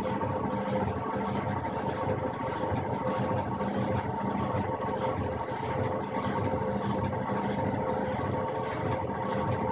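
Washing machine on its spin cycle: the drum spinning at steady speed, a constant motor hum and whine over a low rumble.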